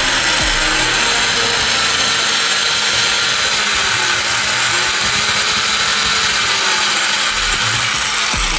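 Bosch corded electric drill with a hole saw, running steadily as it cuts into a hard plastic side-mirror housing.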